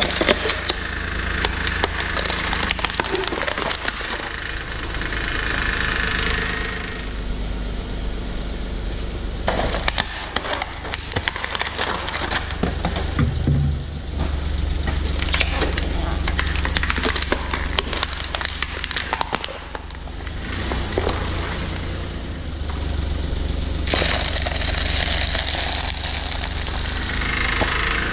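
Car tyre rolling over and crushing foam food containers and plastic instant-noodle cups, with repeated cracking and crunching over the low hum of the car's engine.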